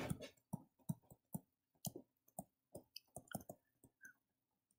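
Faint, irregular clicks of a stylus tip tapping a touchscreen during handwriting, a dozen or so short taps.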